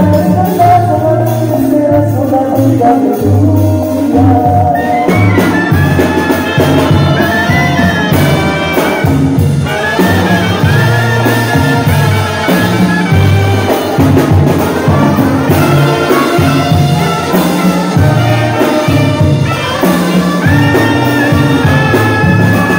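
Live Mexican brass banda playing: a trumpet section plays the melody in sustained, bright notes over a tuba bass line and drums.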